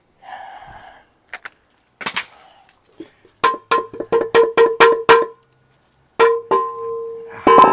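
Metal striking metal in the middle of an engine teardown: a quick run of about eight ringing strikes, each ringing at the same pitch. Then a single strike rings on for over a second, and a last strike comes near the end.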